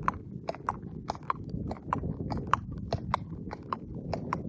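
Thoroughbred horse's hooves clip-clopping on a wet tarmac lane at a walk, about three to four even hoof strikes a second, over a steady low rumble.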